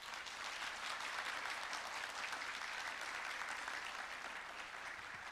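Audience applauding at the end of a song: steady clapping from many people, thinning slightly near the end.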